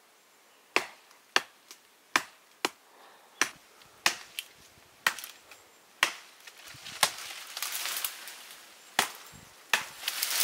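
Repeated sharp chopping strokes of a blade into wood, about two a second at first, then fewer strokes over a rising rustling hiss in the last few seconds.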